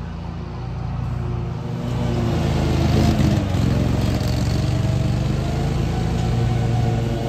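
Ride-on lawn mower engine running steadily, getting louder about two seconds in and staying loud while it mows the grass.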